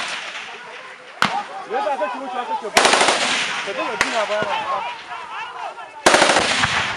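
Rifle fire in a firefight. A single shot comes about a second in, then a rapid automatic burst near three seconds, another single shot, and a second rapid burst about six seconds in.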